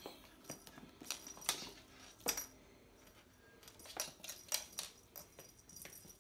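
A kitten batting a small toy cat ball across a wooden floor: scattered clicks and short rattles as it is struck and rolls. The sharpest hits come about a second and a half and two seconds in, and again around four to five seconds in.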